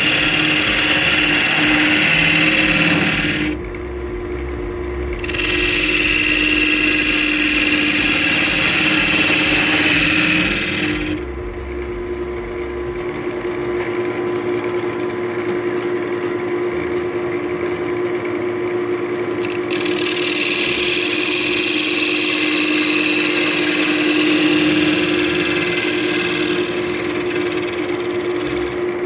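Wood lathe running with a steady hum while a turning tool cuts into a spalted beech bowl, giving a rough hiss. The cutting noise breaks off briefly about four seconds in and again for several seconds in the middle, while the motor hum carries on.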